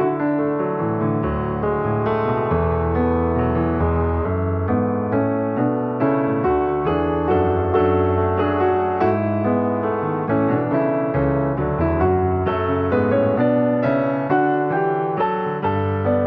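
Background music: piano or electric piano playing a steady flow of notes over sustained bass notes.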